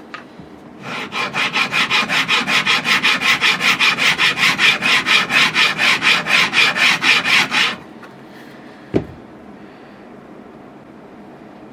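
Fret ends on a Stelling banjo neck being filed with a fret-edge bevel file held in a block: fast, even back-and-forth filing strokes, about five a second, that stop about two-thirds of the way through. A single sharp knock follows about a second later.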